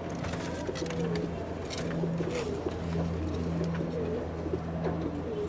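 Domestic pigeons cooing, low wavering coos overlapping one another, over a steady low hum.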